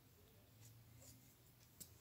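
Near silence, with faint rustles and a small click near the end from hands handling embroidered fabric and a thread tassel in an embroidery hoop.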